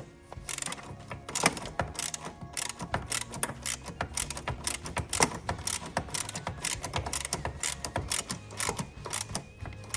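Ratchet with a 13 mm socket clicking in quick, irregular runs as a lock nut is tightened down snug.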